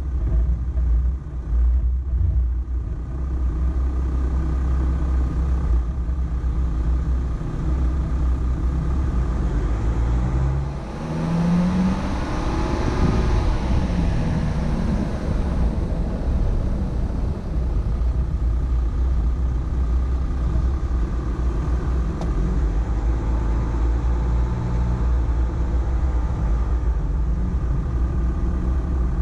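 Volkswagen Amarok pickup's engine running low and steady while crawling over the off-road course, with a brief rise in revs and a rush of noise about halfway through before it settles back.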